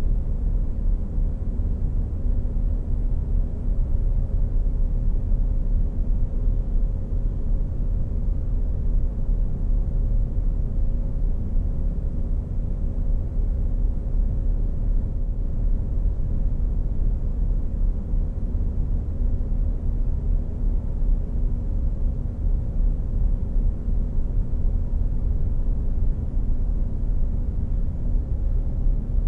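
Steady low rumble with a faint constant hum above it, unchanging throughout.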